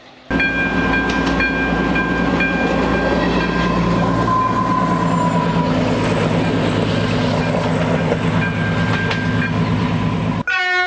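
Diesel railcar passing close by, its engine running steadily under load with the rumble of wheels on rail. Its horn sounds in a string of short blasts over the first few seconds and once more near the end, and the sound cuts off suddenly just before the end.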